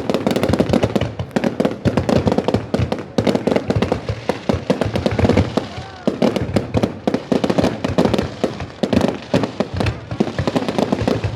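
Fireworks going off in a dense, continuous barrage of bangs and crackles, many to the second.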